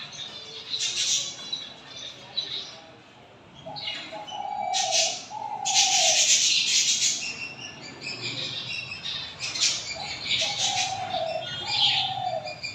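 Wild dove giving short falling coos in two clusters, mixed with loud, harsh, high-pitched squeaky bursts that are typical of a dove chick begging while being fed.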